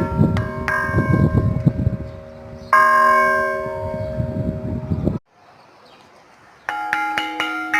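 Church bells ringing, repeated strikes overlapping in a sustained ringing tone, with a louder stroke about three seconds in. The ringing cuts off abruptly after about five seconds, and a different bell starts striking near the end.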